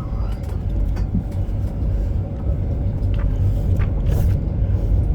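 Nottingham Express Transit tram under way, heard from inside the car: a steady low rumble of wheels on rail with a faint steady motor whine, and a few light clicks and rattles.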